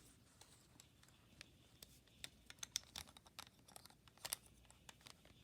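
Faint, scattered small clicks of plastic Rubik's Cube pieces being handled and pressed back into place while the cube is reassembled.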